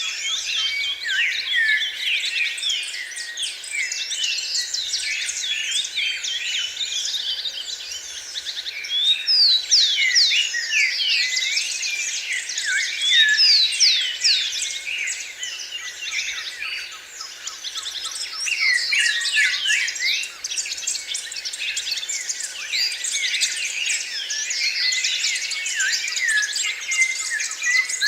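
A chorus of many songbirds singing at once: dense, overlapping chirps and quick whistled notes sweeping up and down in pitch, without a break.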